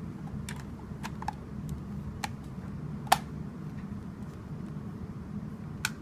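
Sharp plastic clicks and taps at irregular intervals, the loudest about three seconds in, as the Sunbeam hair dryer's plastic shell and switch are pressed back into place, over a steady low hum.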